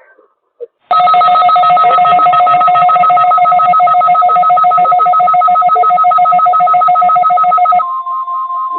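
Weather radio alert tone, loud and harsh: a steady two-pitch alarm starts about a second in, then near the end gives way to a single steady tone, the weather radio's warning alarm tone.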